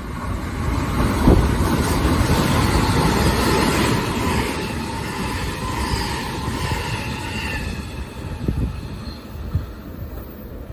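Electric commuter train running past on the rails, loudest in the first few seconds and then fading, with high-pitched whining and squealing from wheels and motors in the middle. A few sharp rail clacks near the end.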